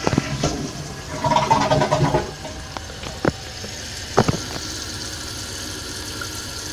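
Knocks and a short rush of noise from a Kohler Wellworth toilet tank being handled, followed by a steady hiss.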